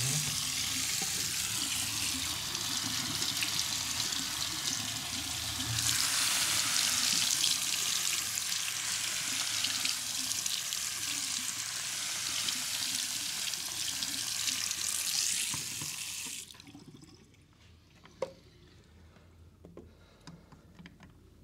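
Running water splashing steadily, as in a foot wash; it gets louder about six seconds in and stops abruptly about sixteen seconds in, leaving quiet with a few faint clicks.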